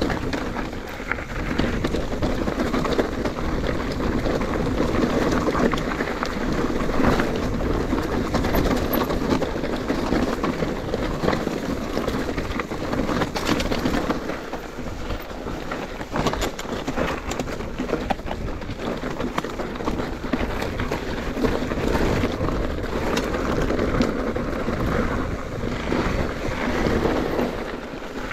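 Wind buffeting the microphone while a mountain bike rolls along a rough trail: a steady rushing noise with many small clicks and knocks from the tyres and bike over the ground.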